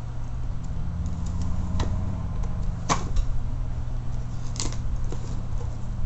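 A metal key slitting packing tape and a cardboard box being pried open: light scraping with a few sharp cardboard clicks and snaps, over a steady low hum.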